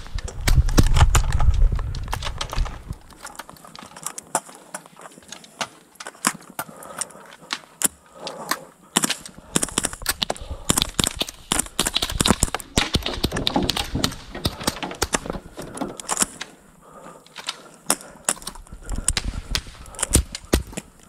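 Gunshots fired at close range in irregular strings, some rapid, some spaced, with a low rumble in the first couple of seconds.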